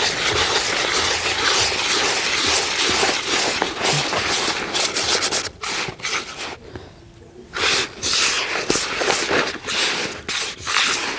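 Hands rubbing and stirring damp, crumbly groundbait made from crushed expander pellets in a plastic bowl to work the water through it. It makes a continuous gritty rubbing and scraping of many short strokes, with a brief lull about seven seconds in.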